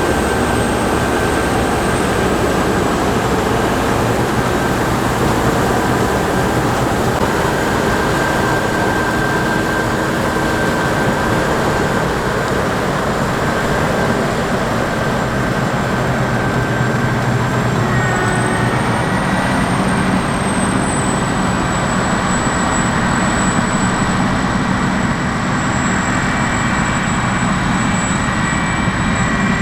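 Heavy harvest machinery running steadily: a deep engine drone with a thin high-pitched whine over it, and the whine steps up in pitch about two thirds of the way through.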